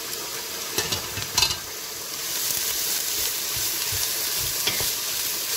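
Sliced bell pepper strips sizzling in hot oil in a stainless steel pot, with a few knocks in the first second and a half as they are tipped in from a plate. The sizzle gets louder about two seconds in as a wooden spoon stirs them through.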